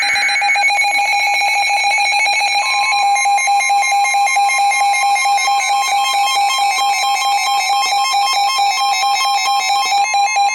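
Emergency Alert System attention tones from a broadcast: a loud, steady electronic tone, joined about two and a half seconds in by a second, slightly higher steady tone that sounds with it, signalling that an emergency warning is about to be read.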